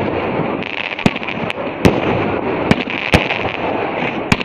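Fireworks going off: about six sharp bangs at irregular intervals over a steady hiss.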